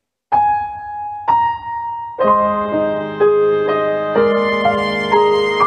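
Soft piano music opening a segment: after a moment of silence, two single held notes about a second apart, then a slow accompaniment of chords from about two seconds in.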